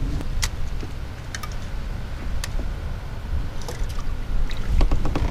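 Kayak on the water: a steady low rumble with a few sharp clicks spread through, and light splashing as a released fish swims off beside the hull.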